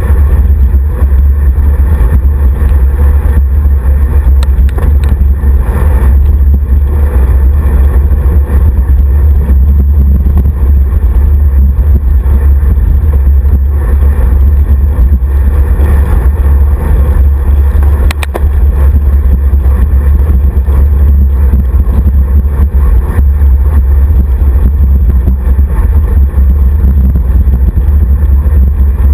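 Steady, loud wind rumble on a handlebar-mounted action camera's microphone while riding a road bike at speed, mixed with road vibration from the bike. A couple of brief clicks stand out, one a few seconds in and one just past the middle.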